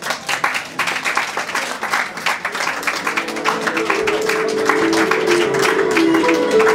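Live music on an electric keyboard, with applause and clapping over the start; held keyboard notes come in about three seconds in and change in steps.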